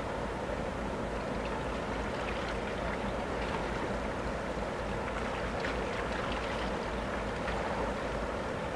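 The MV Coho car ferry's engines running as a steady low drone, with churning water, as the ship manoeuvres in toward the dock.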